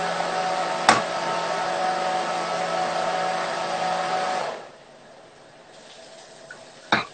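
Small electric blender motor running steadily while blending hummus (chickpeas and tahini), then switched off about four and a half seconds in. A sharp click about a second in and another near the end.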